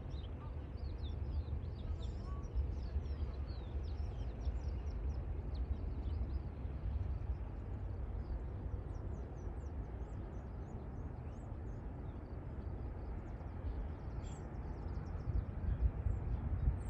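Small birds chirping and twittering, busiest in the first half, over a low, uneven rumble.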